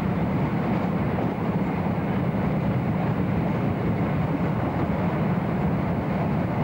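Steady rumble of a moving passenger train, heard from inside the carriage.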